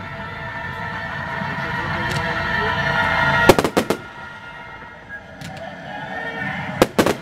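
Aerial fireworks shells bursting: a quick cluster of about four sharp bangs about three and a half seconds in, and two more near the end, over a steady background sound.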